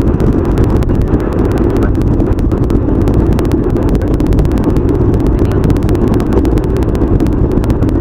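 Car cabin road and engine noise picked up by a dashcam, speeded up with the time-lapse playback into a dense, steady rumble with rapid clicking.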